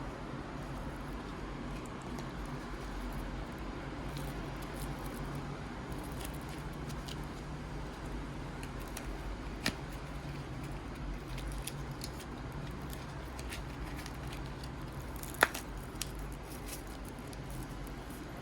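Steady low hum with faint scattered ticks and rustles, a small click about ten seconds in and a sharper click about fifteen seconds in.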